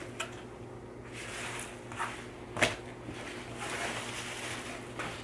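Paper towels rustling and crinkling as they are handled on a table, with a few light knocks, over a steady low hum.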